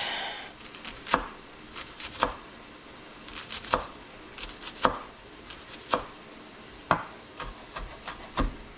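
Knife mincing a shallot on a wooden cutting board: separate sharp taps of the blade striking the board, about one a second, with a few quicker strokes near the end.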